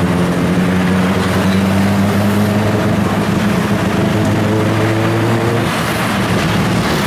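Tuk-tuk engine running while the vehicle drives along, heard from the open passenger seat together with road noise. The engine note drops shortly after the start and changes again near the end.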